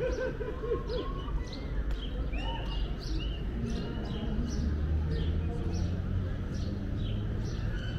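Busy indoor amusement park din: people's voices over a steady low hum, with a run of quick sharp clicks or clacks about two or three times a second.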